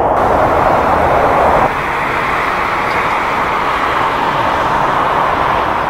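Steady jet-engine noise from airliners on the runway: first an Airbus A350-900 with Rolls-Royce Trent XWB engines, then, after a slight drop in level about one and a half seconds in, an Airbus A330-300 that has just touched down.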